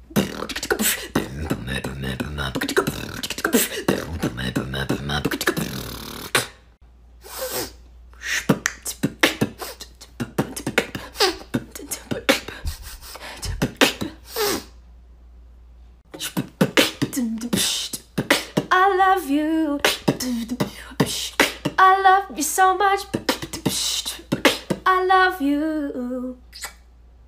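A woman beatboxing: mouth-made drum sounds, first a dense, low stretch for about six seconds, then sparse sharp clicks and hisses. From about two-thirds of the way in, a wavering sung line runs over the beat.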